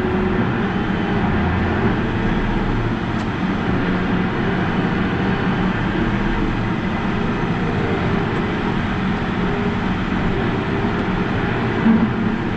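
Combine harvester running steadily while cutting soybeans, a constant machine drone with no change in pace.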